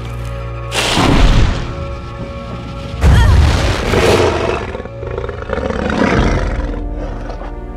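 Dramatic film-score music with two heavy booming hits, about a second in and about three seconds in, followed by a dragon's growling roar.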